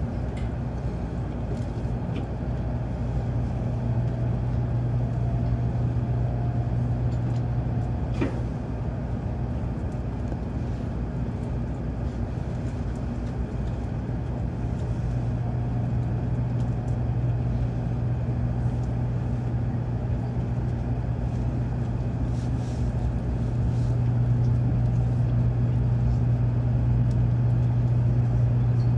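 Tokaido Shinkansen train running at speed, heard from inside the passenger cabin: a steady low hum and rumble, with a single brief click about eight seconds in, growing a little louder near the end.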